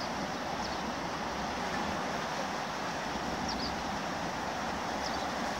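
Steady rush of the flooded Cher river's fast brown water, with a few faint high chirps over it.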